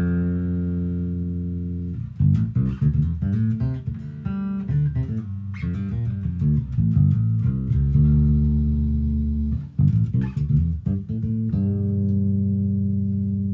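Squier six-string electric bass played with the fingers: long ringing notes at the start, then a run of quick notes, another held note about two-thirds of the way through, a second quick run, and a held note left ringing near the end.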